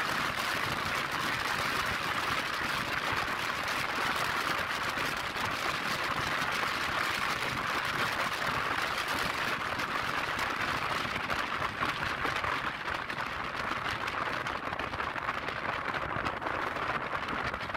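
Steady rushing hiss of wind and road noise from a scooter riding at speed, with no clear engine note.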